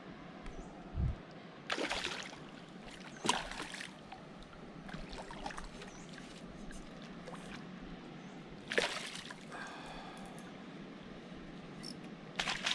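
Hooked piau thrashing and splashing at the water's surface beside the boat while it is reeled in, in several short splashes a few seconds apart. Near the end the landing net goes into the water.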